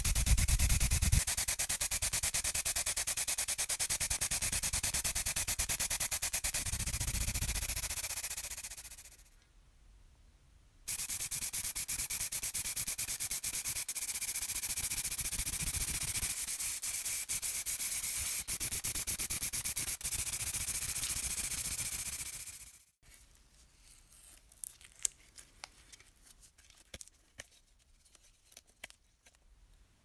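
Steady hiss of red paint being sprayed onto small metal toy parts, in two long passes with a pause of about two seconds between them. After about 23 s the hiss stops, and small metal parts click faintly as they are handled.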